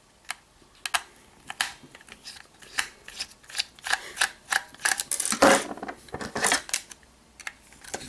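Irregular light clicks and ticks of a small precision screwdriver working the screws of a plastic smart-switch housing while the housing is handled, loudest a little past the middle.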